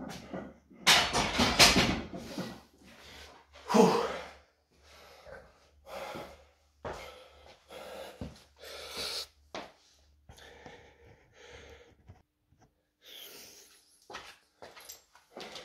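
Heavy, gasping breaths of a lifter recovering after a heavy set of barbell back squats, after a loud clank about a second in as the loaded barbell is set back into the rack. Near the end, metal clinks as a weight plate is swapped on the bar.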